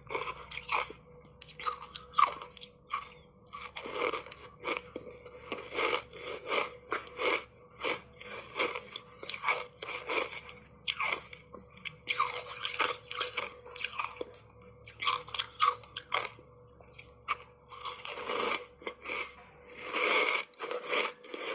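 Ice coated in matcha powder being bitten and chewed close to a clip-on microphone: a rapid, irregular run of crisp crunches.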